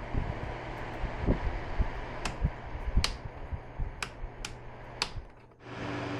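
Sharp clicks and taps of plastic fan parts being handled, about five of them in the second half, over a steady low hum.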